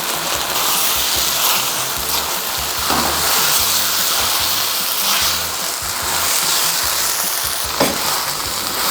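Squid and vegetables sizzling steadily in hot lard and chili seasoning paste as they are stir-fried in a pan. There are two brief sharper scrapes, about three seconds in and near the end.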